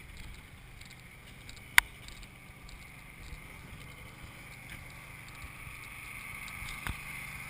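Small motor scooter engine running steadily at low speed, with a sharp click a little under two seconds in and a fainter click near the end.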